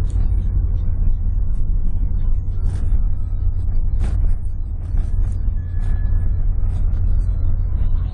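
Car interior noise while driving on a rough sand track: a heavy, steady low rumble with scattered knocks and rattles as the car jolts over the surface.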